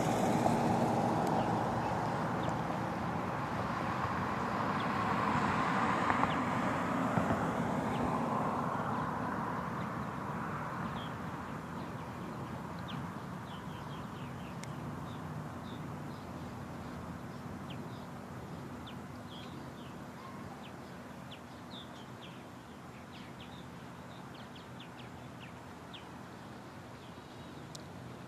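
A passing vehicle's road noise fades away over the first ten seconds or so, leaving faint, scattered bird chirps over a quiet background.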